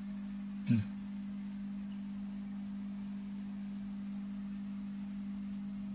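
Steady low electric hum of an aquarium air pump (aerator) running, with one short low sound just under a second in.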